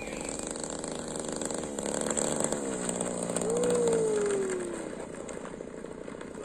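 DLE 20cc single-cylinder two-stroke petrol engine of an RC model plane running at low throttle during its landing rollout. Its note falls about halfway through as the plane rolls past, then grows quieter.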